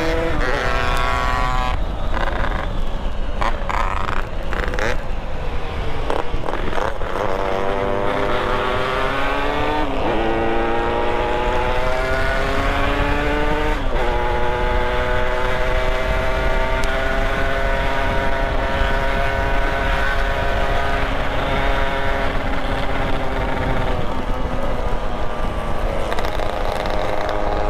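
Motorcycle engine running under way. Its pitch climbs as it revs and drops sharply at gear changes, about a second in and again about halfway. It then holds steady and eases off near the end, with wind rumble on the microphone underneath.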